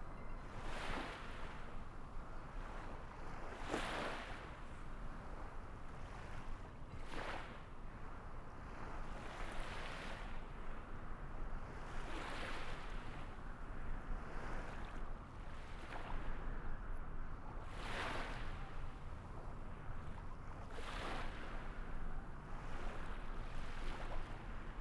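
Small waves washing in, a swell of hissing surf about every three seconds over a steady low rush of water.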